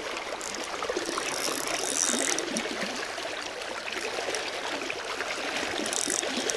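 Spinning reel cranked steadily to wind in a hooked fish, its gears ticking rapidly, over the steady rush of river water.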